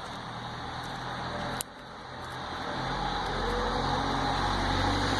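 An engine running steadily with a low hum that grows louder over the second half. There is one sharp click about a second and a half in.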